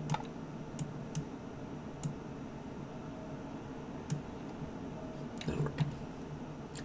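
Scattered computer mouse clicks, single ones every second or so with a small cluster near the end, over a faint steady low hum.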